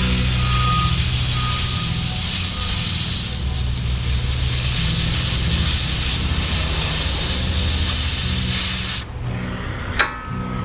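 A steady spraying hiss that cuts off suddenly about nine seconds in, followed by a single sharp click about a second later.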